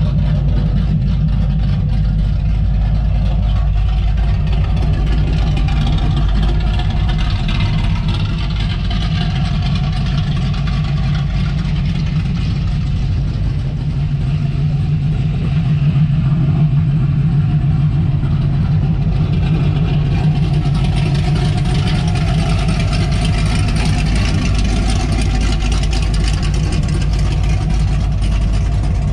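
Big-block Mopar V8 of a 1970 Dodge Coronet, breathing through headers, 3-inch pipes and Flowmaster 40 series mufflers, idling steadily with a deep, loud exhaust note. It swells a little for a few seconds about halfway through.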